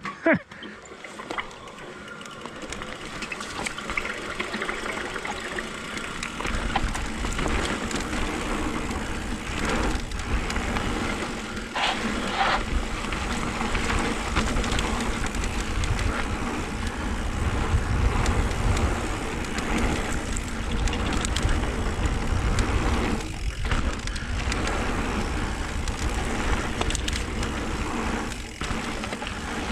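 A mountain bike riding a dirt trail: steady tyre roll and rattle, growing louder over the first few seconds as it picks up speed. From about six seconds in, wind buffets the helmet camera's microphone with a low rumble.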